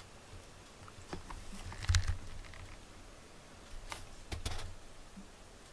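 A cat stepping across a desk and over a loose wooden slat rack: a few scattered knocks and clicks of paws and wood, the loudest a dull thump about two seconds in.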